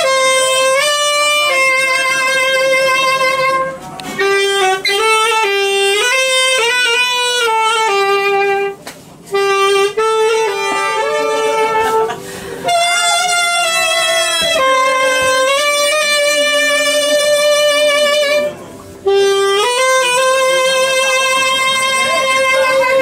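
Solo saxophone playing a melody in phrases, with short breaks for breath between them.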